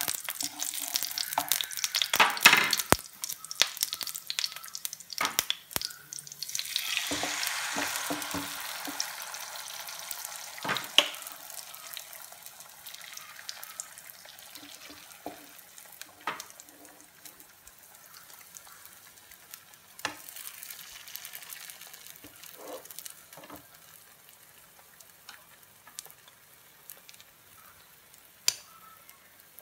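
Batter frying in a hot nonstick pan, with scrapes and taps of a spatula and ladle against the pan. The frying swells about seven seconds in, as fresh batter goes into the pan, then settles to a quieter frying, with a sharp click near the end.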